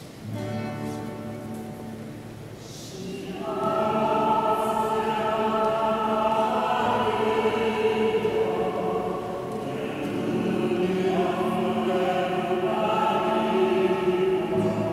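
A choir singing a slow sacred song in held notes. It starts softly and swells fuller and louder about three and a half seconds in.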